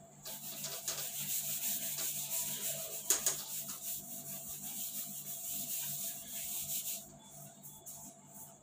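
Whiteboard duster wiping marker writing off a whiteboard: continuous scrubbing strokes that stop about seven seconds in, with a sharp knock against the board about three seconds in.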